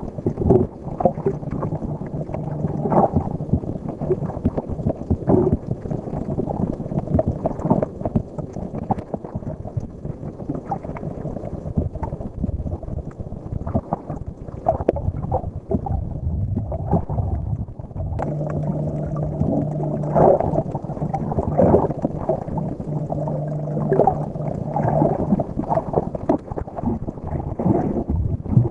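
Muffled underwater sound as picked up by a camera in the sea: water sloshing with frequent small knocks and bumps. A steady low hum runs underneath at times.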